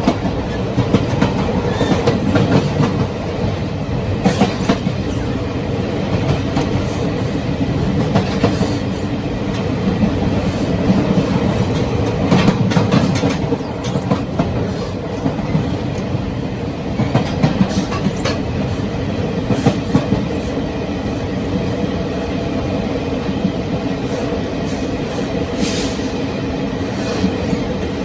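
Taiwan Railways Chu-Kuang Express passenger train running, heard at the connection between two cars: a steady rumble of wheels on rail with clattering and knocks from the car connection and rail joints throughout.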